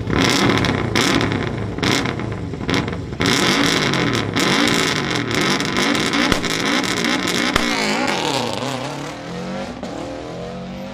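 Subaru Impreza rally car's turbocharged flat-four engine revving hard and repeatedly, with sharp bangs from the exhaust. Near the end the engine note climbs and fades as a car pulls away.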